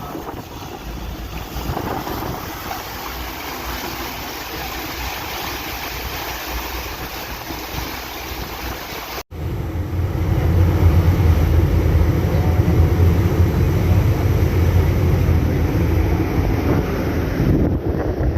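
Wind buffeting the microphone aboard a boat under way, over the steady rush of the boat and the sea. The sound cuts out sharply for a moment about nine seconds in, and after that the low wind rumble is much louder.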